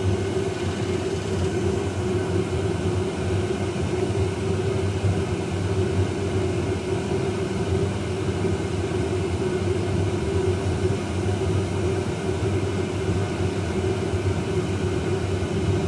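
Homemade waste oil boiler burner running: a steady rushing noise with a low hum that holds evenly throughout.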